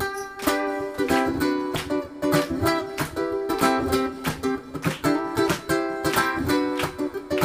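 Ukulele playing an instrumental tune live: a quick plucked melody over chords, with many rapid note attacks.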